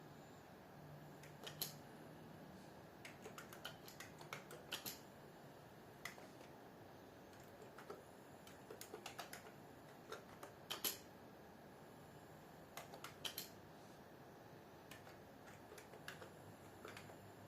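Faint keystrokes on a computer keyboard, typed in short irregular runs with pauses between them.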